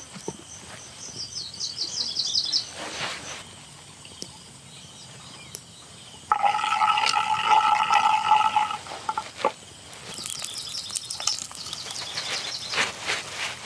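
Small birds chirping in quick high series, with a loud, steady pitched tone lasting about two and a half seconds midway through, and a few sharp knocks or clicks.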